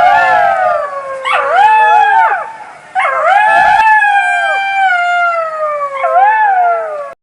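A pack of jackals howling in chorus: several overlapping calls that slide down in pitch, with short yips, starting afresh in waves three times. The chorus cuts off suddenly just before the end.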